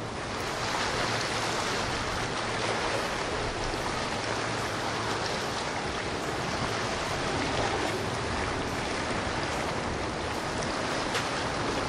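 Steady rushing and splashing of water churned up by the wakes of passing boats.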